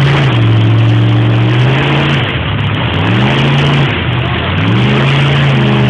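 Mud-bogging truck engine revving hard in three surges: held high, dropping off, then climbing again each time as the truck pushes through deep mud.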